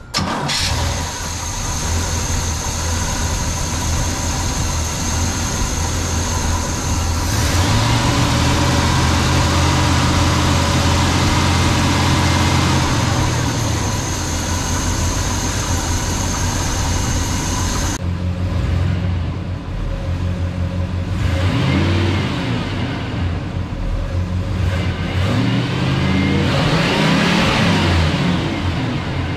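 The Oldsmobile V8 of a 1971 Cutlass Supreme, its Rochester Quadrajet four-barrel carburetor freshly rebuilt and tuned, starts up and runs, then is revved up and let back down several times.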